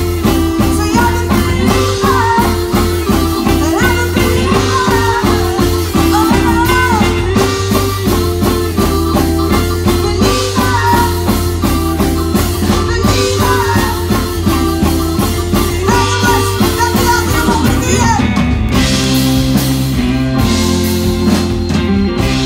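Live rock band playing through a stage PA: electric guitars, bass, drums and keyboard, with a wavering melody line over a steady bass. The bass line changes about eighteen seconds in.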